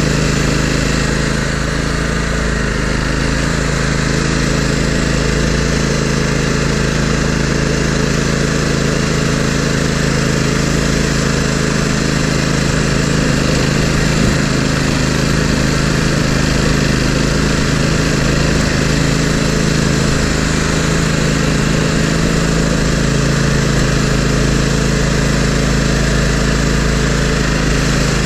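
Toro GrandStand MultiForce stand-on machine's engine running steadily, heard close up from on board, as it pushes snow with its front plow blade.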